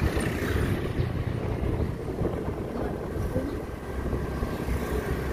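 Steady low rumble of wind and engine noise while riding a motorbike through traffic, with wind buffeting the microphone.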